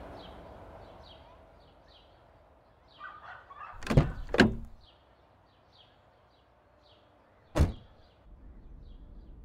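Door thuds: two heavy bangs close together about four seconds in, then a single one a few seconds later.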